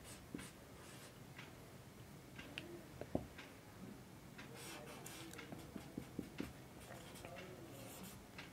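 Marker pen drawing on a whiteboard, faint: short scratchy strokes and light taps of the tip, with the sharpest tap about three seconds in and a quick run of taps a little later.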